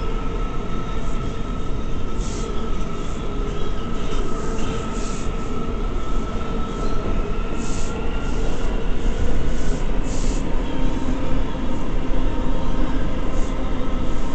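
R179 subway car running at speed through a tunnel, heard from inside the car: steady rumble of wheels on track with a high whine that fades about halfway through, and short high hissing flares every second or so.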